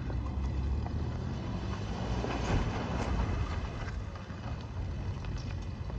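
Steady low vehicle rumble with wind noise on the microphone.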